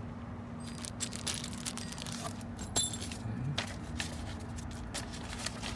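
Small metal parts of a short-shifter kit clicking and clinking as they are handled, a scatter of light taps over a steady low hum.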